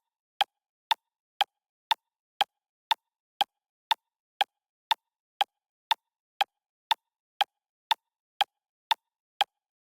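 Clock ticking steadily at two ticks a second, each tick a short, sharp click with silence between.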